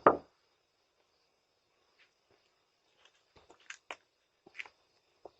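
A short loud burst right at the start, then faint scattered taps and clicks from about three seconds in, over a faint steady high whine.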